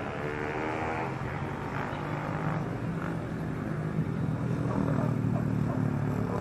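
Electric motor and propeller of a home-built styrofoam RC plane running with a steady low hum.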